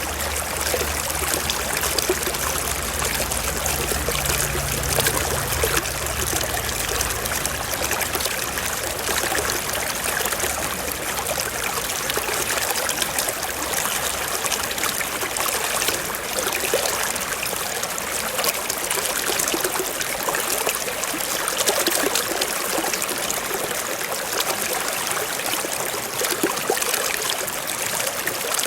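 Small stream trickling and splashing over rocks, a steady dense hiss with fine crackle. A low rumble sits underneath for the first several seconds, then fades out.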